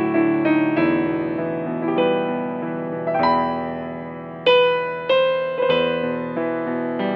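Background piano music: a slow melody of sustained notes over held bass notes.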